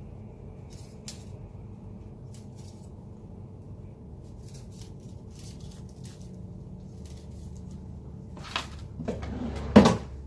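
Light clicks and handling noises of small tools being picked up and set down on a workbench, ending in a louder knock and clatter shortly before the end, over a steady low hum.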